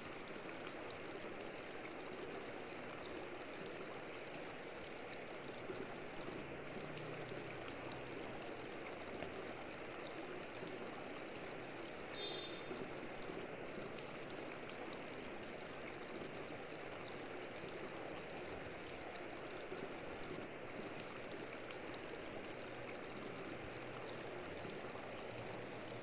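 Terracotta jar fountain running, with water trickling steadily down the jar's terracotta surfaces into the basin below.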